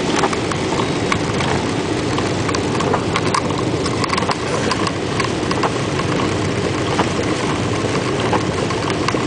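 Car driving through heavy hurricane rain: a steady rush of wind, rain and wet-road noise, with scattered sharp ticks.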